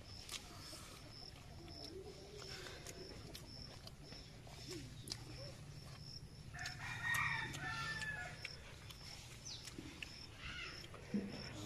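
A rooster crows once, about six and a half seconds in, a drawn-out call of nearly two seconds. Underneath, a faint high chirp pulses evenly a few times a second.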